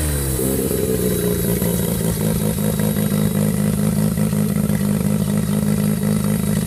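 Turbocharged engine in a classic Mini with its front end stripped off, the revs dropping away in the first half second, then idling steadily with a regular pulse.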